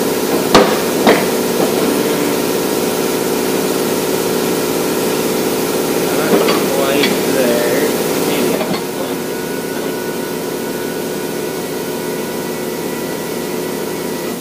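Steady mechanical hum of workshop equipment running, which drops in level about two-thirds of the way through. Near the start come two sharp knocks half a second apart as a wooden block is knocked against the axle, followed by lighter clunks as the block and axle are set in place.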